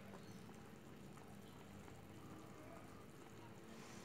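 Faint bubbling of rendang, a coconut-milk curry, simmering in a pan.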